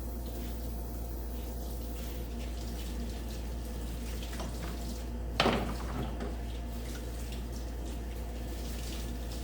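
Water running steadily while a greasy mower spindle part is washed clean, over a constant low hum. About five and a half seconds in comes one short, sharp sound that drops quickly in pitch.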